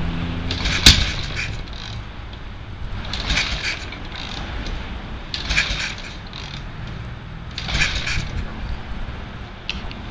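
Freshly rebuilt engine of a Mustang minibike running at a low idle, with a sharp click about a second in and a short burst of mechanical clatter roughly every two seconds.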